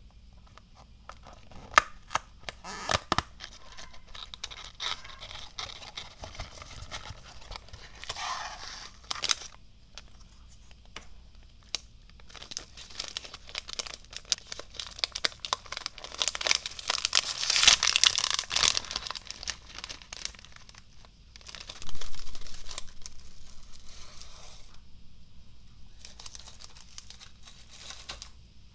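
Snack packaging handled and opened: scattered taps and crackles from the cardboard box, then a long stretch of the metallic foil inner packet crinkling and tearing open. The crinkling is loudest a little past the middle, and a sharp tearing sound follows soon after.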